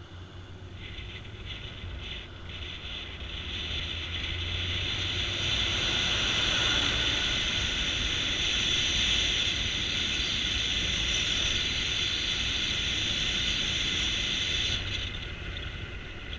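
Motorcycle riding at speed, heard from a camera mounted on the bike: rushing wind noise over the microphone with the engine's low hum beneath. It grows louder from about four seconds in and eases off near the end.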